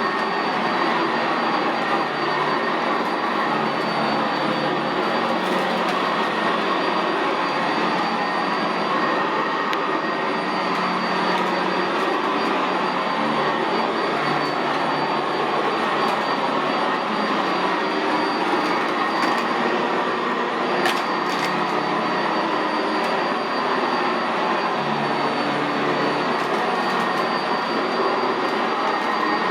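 Sanitaire SC679J commercial upright vacuum running steadily as it is pushed over carpet: a loud even rush of air with a steady high whine over it. A brief click about two-thirds of the way in.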